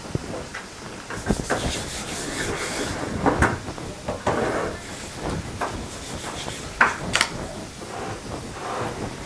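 Hands pressing and patting a ball of dough flat on a floured wooden board, with soft rubbing and a few sharp taps on the wood.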